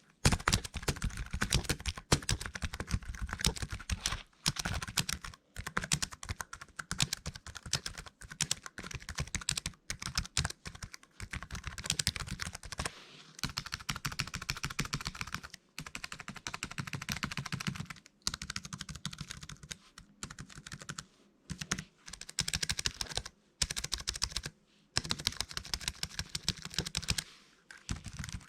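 Typing on a Toshiba Tecra M5 laptop keyboard: fast runs of light key clicks in bursts, broken by short pauses.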